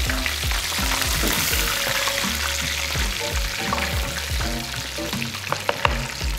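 Hot oil sizzling in a skillet as battered, breaded cod fillets are lifted out with tongs, under background music with a steady beat.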